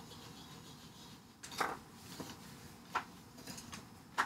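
Hard plastic toy pieces clicking and knocking together as a snap-together figure set is handled, a few separate sharp clicks, the last and sharpest near the end.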